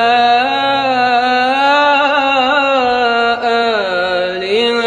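A young man reciting the Qur'an in melodic tajweed style, holding one long drawn-out note with small ornamented wavers. The pitch dips lower near the end and then rises again.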